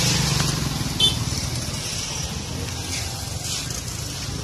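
A motor vehicle's engine running steadily amid street traffic, a low even rumble with a hiss of road noise over it. About a second in comes one short, sharp high click or beep.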